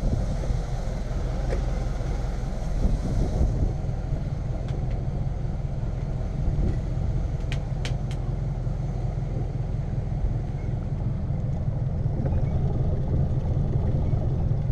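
Bayliner 3288 motor yacht's engines idling as a steady low rumble, mixed with wind buffeting the microphone. A few light clicks come about halfway through.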